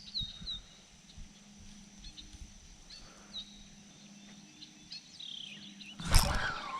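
Small birds giving short, high chirps now and then over quiet outdoor ambience. About six seconds in, a sudden loud burst of noise cuts in and lasts under a second.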